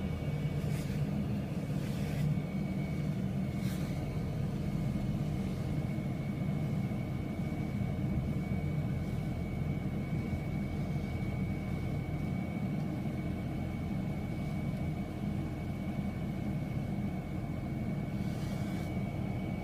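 Road and engine noise of a Dodge Charger driving along a runway, heard inside its cabin: a steady low rumble with a thin steady high whine running through it, and a few brief knocks in the first few seconds and near the end.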